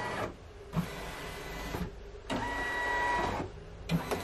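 Brother Skitch embroidery machine doing a trial run, its motors moving the embroidery hoop around the design area without stitching. It makes a whirring with a steady high whine, in runs of about a second with short pauses between.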